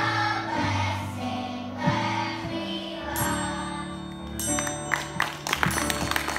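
Children's choir singing with instrumental accompaniment. About four and a half seconds in, audience clapping starts as the children raise their arms for the finish.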